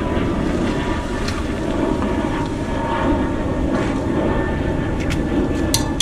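Steady low outdoor rumble with a faint hum throughout. Near the end come a few sharp clicks from a click-type torque wrench set to 80 ft-lb as it tightens a wheel's lug nuts.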